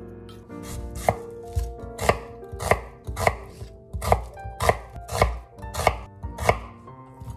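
Chef's knife slicing an onion into wedges on a wooden cutting board: about ten sharp knocks of the blade against the board, roughly one every half second or so, starting about a second in, over soft background music.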